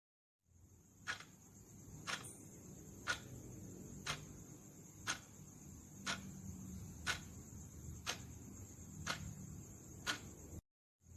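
Countdown timer's clock-style ticking, one sharp tick a second, ten ticks in all, over a steady faint hiss and low rumble. The sound drops out to silence briefly at the start and again near the end.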